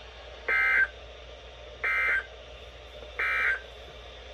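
Emergency Alert System end-of-message data tones on NOAA Weather Radio: three short, identical bursts of buzzy digital data, about a second apart, signalling the end of the alert message.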